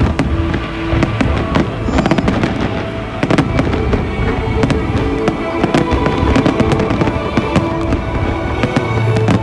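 Aerial fireworks shells bursting in rapid succession, a dense run of sharp bangs, over music with long held notes.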